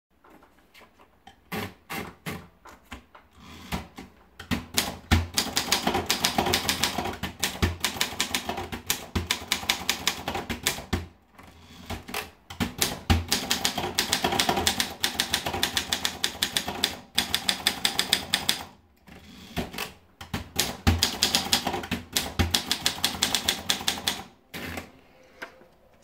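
Groma Modell T portable manual typewriter being typed on: a few scattered clicks first, then three long runs of rapid, clattering keystrokes with a short pause between each, one run per typed line.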